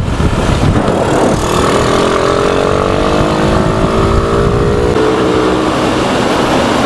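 Rusi SS250 motorcycle engine pulling under acceleration, its pitch rising steadily for a few seconds, with heavy wind rush on the microphone throughout.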